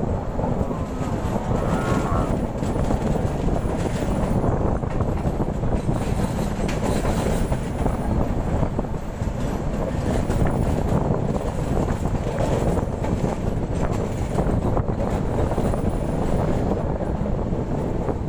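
Indian Railways passenger express train running at speed, heard from an open coach doorway: a steady rumble of wheels on rails.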